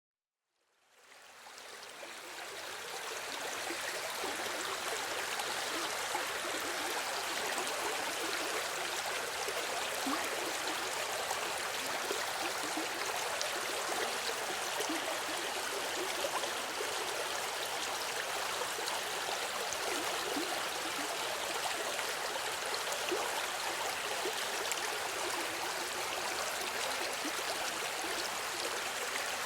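Running river water, a steady rush with gurgling and trickling, fading in over the first few seconds and then holding even.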